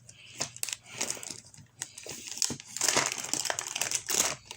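LEGO set packaging crinkling and rustling as it is handled and opened, with sharp clicks, busiest in the second half.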